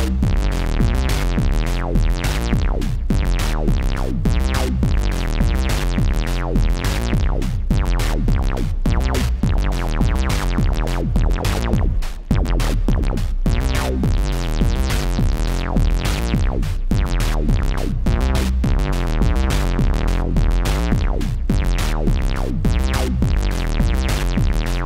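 Funky synth bass line from a Moog Mother-32, its filter and amp driven by separate Quadrax envelopes, short plucked notes that quickly lose their brightness, over a programmed drum beat.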